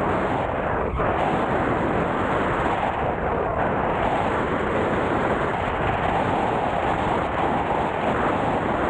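Steady rush of wind buffeting the camera microphone while an electric unicycle is ridden at speed.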